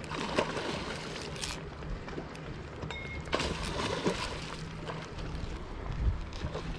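Steady outdoor noise of wind on the microphone and flowing water, with a few brief knocks and rustles.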